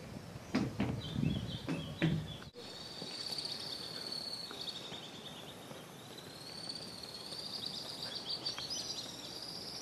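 Footsteps knocking on wooden steps for the first couple of seconds, then, after a cut, a steady shrill chorus of cicadas, pulsing and swelling slightly, with an occasional bird chirp.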